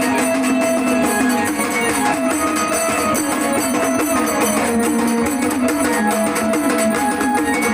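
Marathi devotional folk music in the Waghya-Murali gondhal style: a melodic line over fast, steady drum beats.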